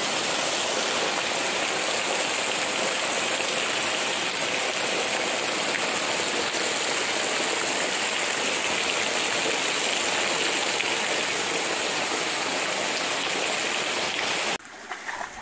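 Heavy rain pouring steadily onto palm fronds and garden foliage, a dense even hiss. It cuts off suddenly near the end.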